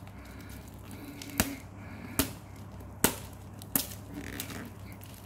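Fingernails picking at the plastic shrink-wrap on a cardboard vape kit box, giving four short sharp crackling clicks, over a low steady hum.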